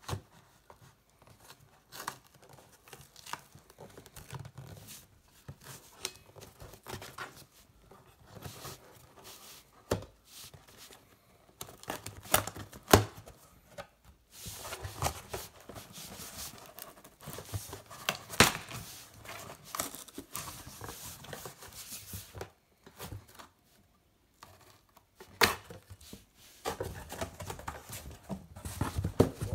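A knife slitting packing tape on a cardboard box and the flaps being pulled open: tape tearing and cardboard scraping and rustling. Irregular sharp knocks and clicks are scattered through it, with a longer run of steady rustling and tearing in the middle.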